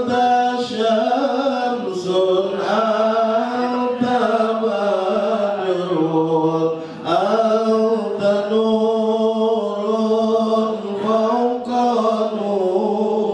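A man chanting sholawat, devotional songs in praise of the Prophet, into a microphone. He sings long melodic lines with held, ornamented notes and short pauses for breath.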